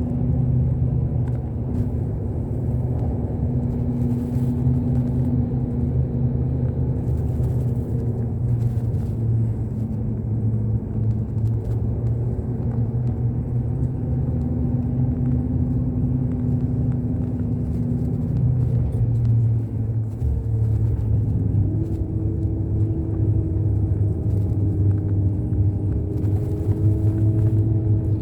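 Bus engine and road rumble, running steadily; the engine's tone changes and rises in pitch about two-thirds of the way through.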